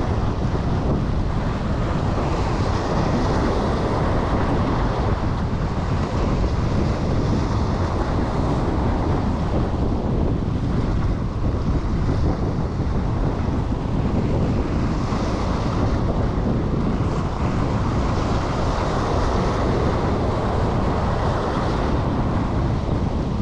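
Strong wind buffeting the microphone over surf washing against the jetty rocks, the hiss of the breaking water swelling every few seconds.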